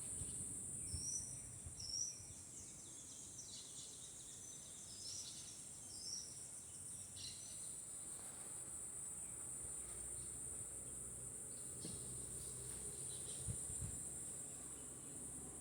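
A steady, high-pitched chorus of insects buzzing throughout, with a bird giving several short chirps during the first half.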